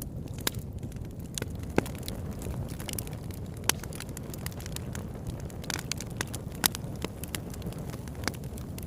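Bonfire burning: a steady low rumble of flames with sharp, irregular crackles and pops of the burning wood.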